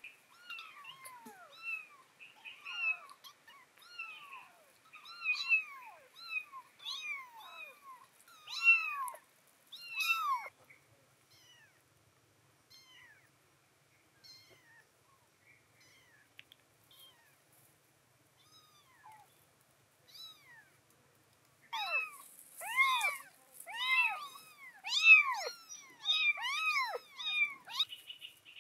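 Young kittens meowing again and again in short, high-pitched calls that rise and fall, often about two a second. The calls thin out to occasional ones in the middle and come thick and loud again for the last several seconds.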